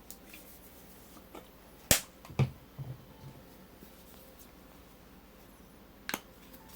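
A few sharp clicks and knocks of small objects being handled. The loudest click is about two seconds in, followed closely by a dull knock and two soft thuds, and another click comes near the end.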